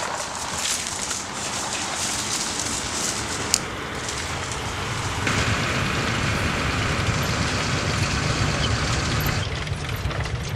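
A WWII German armoured halftrack's engine and running gear rumbling steadily as it drives along, heavier and closer from about five seconds in. There is a single sharp click about three and a half seconds in.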